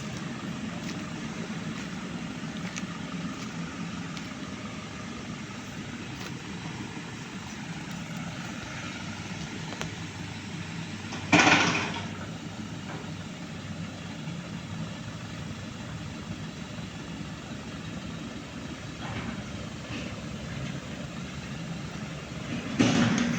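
Engine of an oil palm fruit-handling machine running steadily at a low idle, with one loud, brief clattering knock about halfway through and another near the end.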